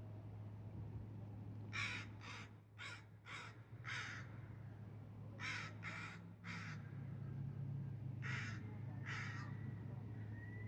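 A crow cawing ten times in three runs: five quick caws, then three, then two. A steady low hum runs underneath.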